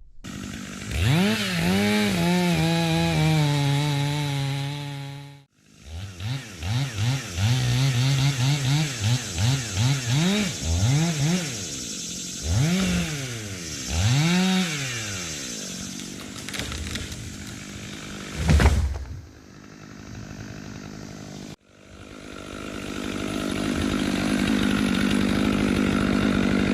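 Gas chainsaw revved up and held at full throttle, then blipped on and off in quick short revs and left idling. A single heavy thump about eighteen seconds in, and the saw running steadily again near the end; the sound cuts off abruptly twice.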